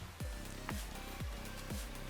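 Background electronic music with a steady kick drum, about two beats a second.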